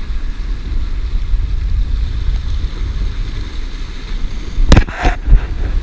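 Wind rumbling steadily on the microphone over waves washing against the jetty rocks, with two sharp knocks in quick succession near the end.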